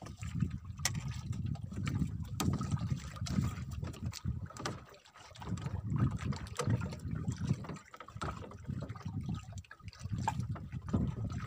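Water sloshing and splashing in a boat's flooded fish hold as hands grip and move a live fish under the surface, in uneven surges with a few small knocks.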